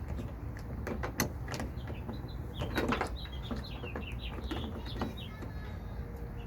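Scattered clicks and knocks of a door handle part on a 2008 Toyota Tundra being wiggled and pried loose, with a louder cluster of clicks about three seconds in. Small birds chirp repeatedly in the background over a steady low rumble.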